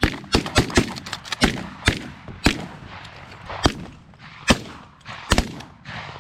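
A volley of shotgun shots from several hunters firing at decoying geese: a quick run of shots in the first two seconds, then single shots roughly every second.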